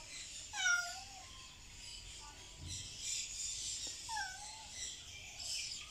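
Cats meowing: two drawn-out meows that fall in pitch, the louder about half a second in and a second one about four seconds in.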